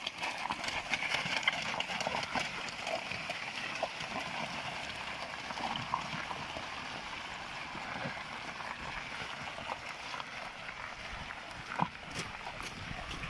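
Draft mare's hooves clopping on a gravel road as she pulls a wooden cart, with the cart rolling over the stones. A sharper knock stands out near the end.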